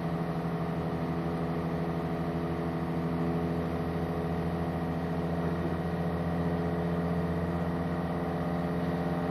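A boat's engine idling, a steady low drone that holds the same pitch throughout.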